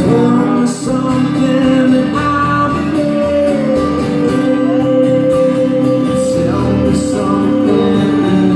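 Acoustic guitar strumming under a singing voice that holds long notes, in a song performed on stage.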